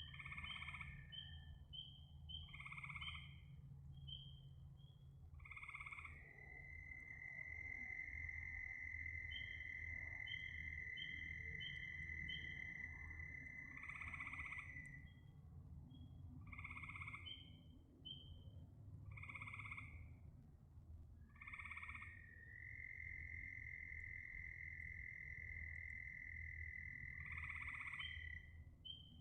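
Frog chorus: a croaking call repeated about every two to three seconds, runs of short high peeps, and twice a long steady trill held for several seconds, over a low hum.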